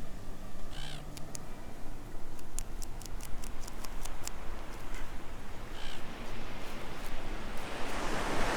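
A seagull calling twice, about a second in and again near six seconds, over a run of short scraping clicks as scales are scraped off a salmon. Surf noise swells near the end.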